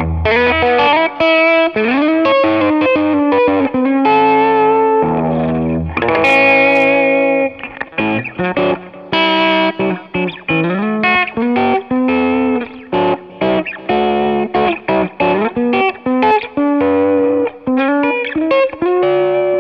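Electric guitar played through a StewMac Ghost Drive, a Klon-style overdrive pedal, with a lightly overdriven, bright tone. Melodic single-note lines with several string bends, a few at a time swelling up in pitch.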